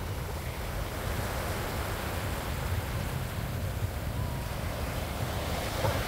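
Small waves breaking and washing up the sand in a steady hiss, with wind rumbling on the microphone.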